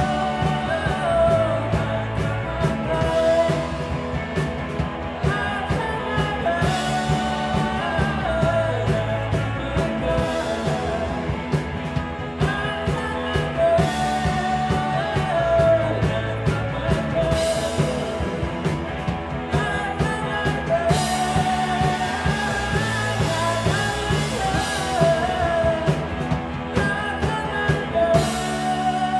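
Live rock band playing loud, continuous psychedelic rock, with electric guitars and a drum kit under a sung vocal line.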